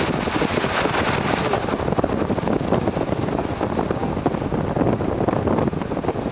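Wind buffeting the microphone in a thunderstorm: a loud, steady rushing noise with dense crackling and no clear tone.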